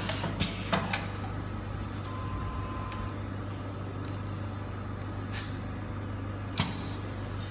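Semi-automatic hotel soap wrapping machine running: a steady low motor hum with sharp clacks from its mechanism, several in quick succession in the first second and two more near the end.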